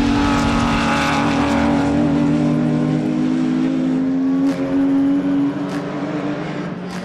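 Race car engine running hard at steady high revs as the car passes and pulls away down the circuit; the engine note drops away about five and a half seconds in.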